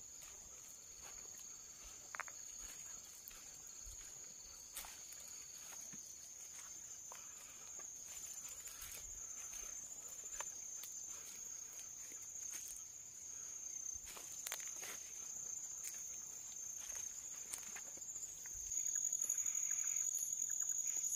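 Night insects, crickets, keeping up a steady high-pitched shrill, with scattered soft rustles and clicks of someone moving slowly through undergrowth. The insect sound grows louder near the end.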